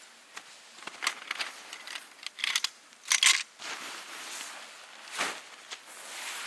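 Crinkling and rustling of material being handled, in a series of short bursts with light knocks, the loudest about three seconds in and a longer rustle just after.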